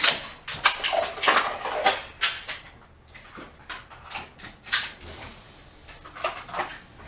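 Pistols being loaded on the firing line: a run of sharp clicks and clacks from magazines being seated and slides racked. They come thick for the first two or three seconds, then sparser and fainter.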